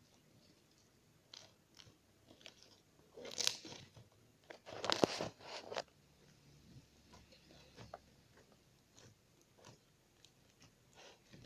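Glue-and-borax slime being pressed and stretched by hand, giving scattered small clicks and crackles, with two louder crackling bursts a few seconds in.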